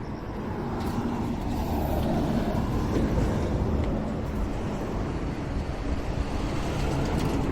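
A train running past, a steady rumble that swells over the first two or three seconds and then holds.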